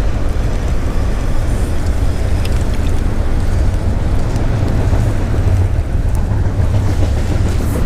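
A train passing: a loud, steady low rumble.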